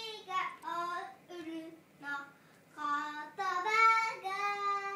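A young girl singing in short phrases of held notes, ending on a long sustained note in the last couple of seconds.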